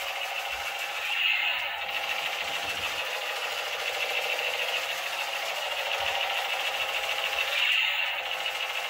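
Battery-operated light-up toy machine gun playing its electronic firing sound effect, a continuous rattle through its small speaker that swells louder about a second in and again near the end.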